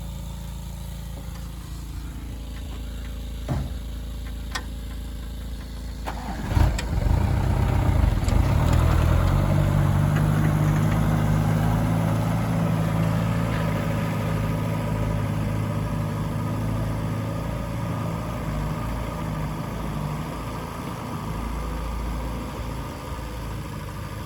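Excavator's diesel engine idling with a few sharp clanks, then about six seconds in a loud clank and the engine picks up under load, running hard for several seconds before gradually easing off.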